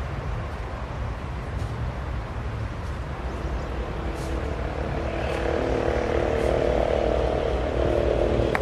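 GE AC44i diesel-electric locomotives running under power as a double-stack container train approaches. A steady low engine rumble, with a mid-pitched engine hum that grows louder from about halfway through.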